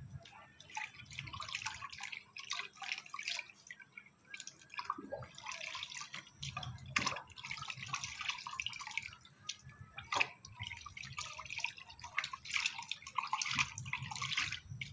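Hands washing a conch shell in a bowl of turmeric water: irregular small splashes, sloshing and drips, with a few sharper knocks.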